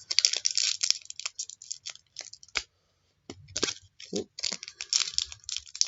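Trading cards and their paper and foil packaging being handled: a run of short crinkles, rustles and clicks, with a brief pause about halfway through.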